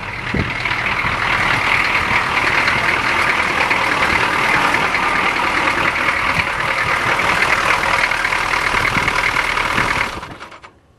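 Starter motor cranking a 6.2 L diesel engine for about ten seconds, with a steady whine and irregular knocks, then stopping. The starter runs with the ignition key turned the wrong way because the replacement switch is a right-hand-drive part and works backwards.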